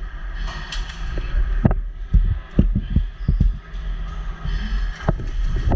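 Irregular sharp knocks and thumps, about a dozen at uneven spacing, over a steady low rumble.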